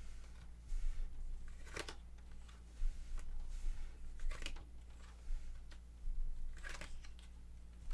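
Tarot cards being handled: three brief papery swishes, a little over two seconds apart.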